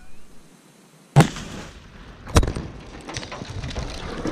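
A 12-pound Tannerite binary-explosive charge detonating in a Kia Sportage, picked up right on the car. A sudden sharp blast comes about a second in, a second sharp bang follows about a second later, and then a rough rushing noise builds.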